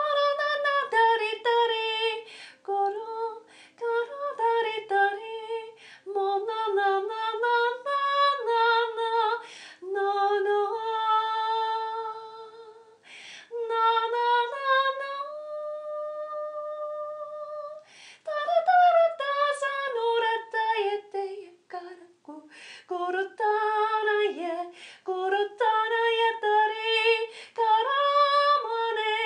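A woman singing unaccompanied in wordless 'light language', quick runs of repeated syllables around one pitch. About halfway through she holds one long note for a couple of seconds, then goes back to the quick runs.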